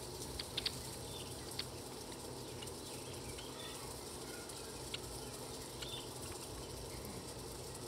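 Small birds giving short, sharp chip notes, scattered and irregular, with a quick cluster of three about half a second in, over a steady low background rumble.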